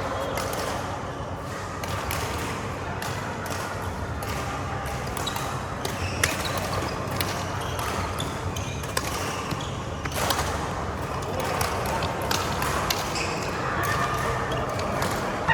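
Badminton rally: rackets striking the shuttlecock with sharp, irregularly spaced hits.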